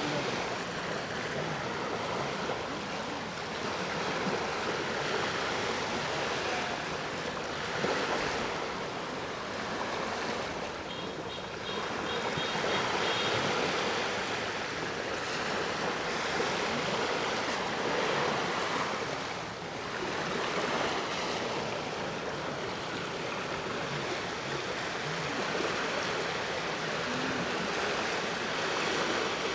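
Sea waves breaking and washing up the shore, a continuous rush that swells and eases every few seconds.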